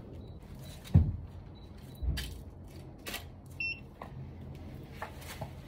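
A camera being knocked and handled: a loud knock about a second in, a second knock near two seconds, scattered sharp clicks, and one short electronic beep a little past the middle.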